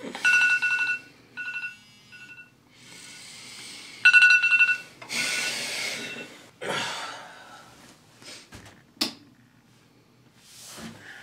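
Mobile phone beeping in short repeated pulses on one steady pitch, loudest near the start and again about four seconds in. Then bedding rustles, and there is a sharp click about nine seconds in.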